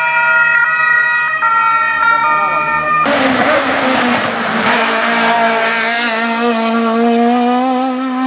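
A two-tone siren from the police escort switches between two pitches for about three seconds. Then it cuts to a small hatchback hill-climb race car running at high revs, its engine pitch climbing steadily as it accelerates up the course.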